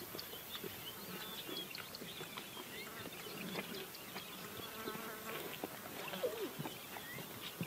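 Faint outdoor ambience of flying insects buzzing, with scattered short chirps.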